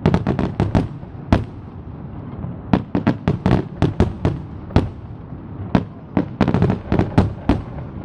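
Aerial fireworks display: many sharp bangs and crackling reports going off in quick, irregular clusters, with short lulls about two seconds in and again around five seconds.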